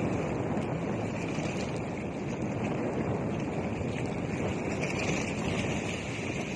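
Steady noise of sea waves washing ashore, with wind buffeting the microphone.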